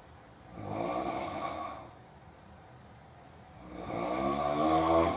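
Loud snoring: two long snores about three seconds apart, the second one louder.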